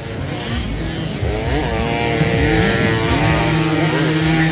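Several 50cc motocross bikes revving on a dirt track, their engine notes overlapping and rising and falling in pitch as they accelerate and shift. The engines grow louder about a second in.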